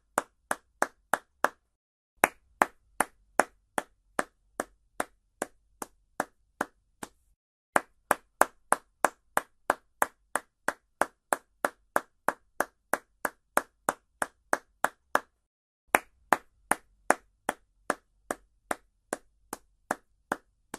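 Hand clapping at a steady, even pace, about two and a half claps a second. The claps come in runs of several seconds broken by three short pauses.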